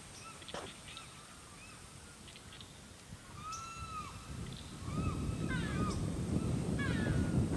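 Wild birds calling: repeated short arched calls and quick falling chirp series. A low rumble comes in about five seconds in and grows louder.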